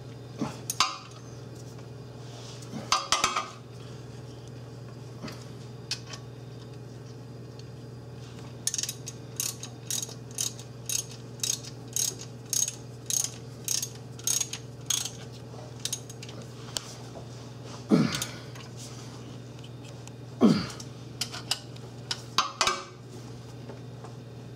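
Socket ratchet (13 mm socket) snugging up exhaust bracket bolts: a few clinks, then a steady run of ratcheting strokes about two a second for some six seconds. Two louder knocks come later.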